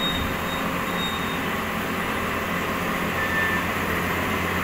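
Heavy diesel machinery running steadily at idle, an even low drone, with a few brief high squeaks over it.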